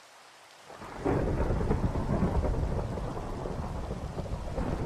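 Rain falling with a faint steady hiss, then a long rumble of thunder that swells up quickly about a second in and keeps rolling.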